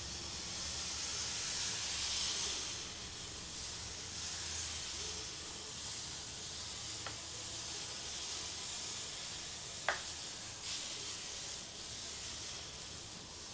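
Thin streams of rice-flour batter sizzling steadily as they are squeezed onto a hot oiled tawa, with a couple of light clicks.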